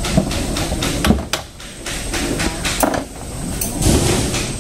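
Handling clatter: a few irregular knocks and clanks over a steady background noise.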